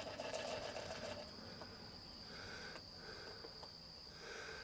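Steady high-pitched drone of insects, with a few faint short notes in the second half.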